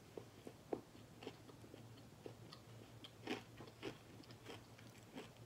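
Chewing crunchy Terra sweet potato chips: faint, irregular crunches, the loudest a little past three seconds in.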